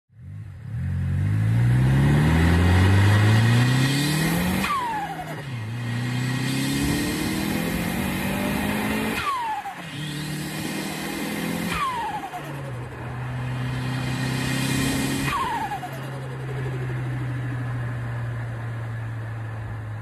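Turbocharged car engine pulling hard with its pitch climbing. Then, four times, the throttle is lifted and the turbo's whistle falls away with a short flutter of compressor surge. For the last few seconds the engine runs at a steady low drone.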